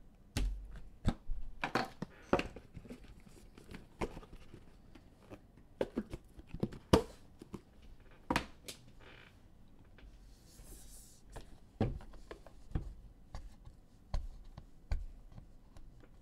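Hands handling trading-card slabs and boxes on a desk: a string of light clicks and knocks, the loudest about seven seconds in, with a brief rustle around ten seconds in.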